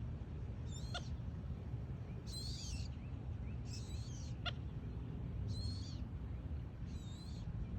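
A bird calling over and over: five short, high-pitched calls, about one every second and a half, over a steady low rumble.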